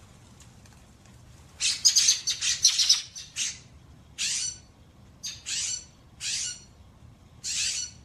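Western scrub-jay screeching: a fast run of harsh calls about a second and a half in, then five single harsh calls spaced through the rest.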